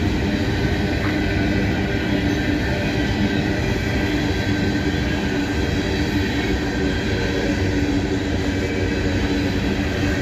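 Coal train cars rolling past: a steady rumble of steel wheels on rail, with faint, steady, high ringing tones over it.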